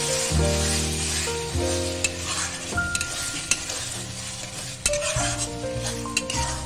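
A metal spatula stirring and scraping thick tomato-onion masala as it sizzles in oil in a kadai, with scattered clicks of the spatula against the pan. The masala is at the frying stage where the oil has separated out. Background music plays underneath.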